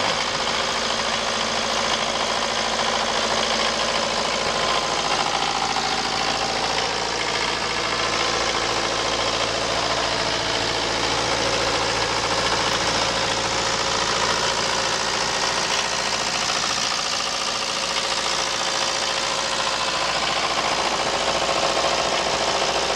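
Onan diesel generator set running steadily at a constant speed.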